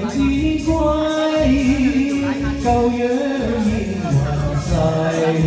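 A man singing a Cantonese song into a microphone over a karaoke backing track with a steady beat.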